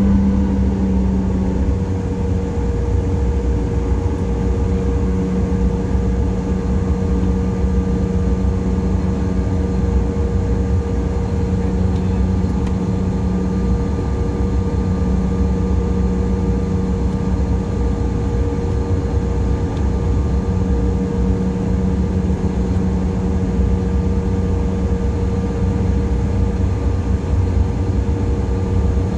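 Cabin noise of a regional jet taxiing with its engines at idle: a steady low rumble with a few steady hums layered over it.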